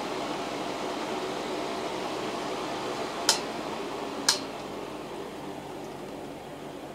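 RAVEN EWB004 desk fan running with a steady whir and faint motor hum. Two sharp clicks come about a second apart near the middle, and after the second the fan runs a little quieter.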